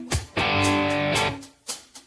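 Background music led by guitar, with sharp plucked and strummed chords that stop and start in short phrases.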